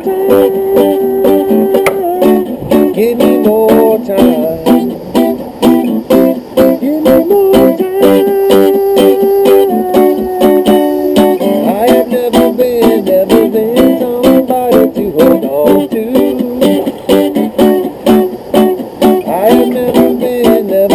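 Guitar music: a steady passage of picked notes and strummed chords.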